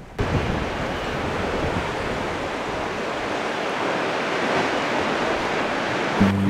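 Steady rush of ocean surf that cuts in abruptly, even and unbroken. Music starts just before the end.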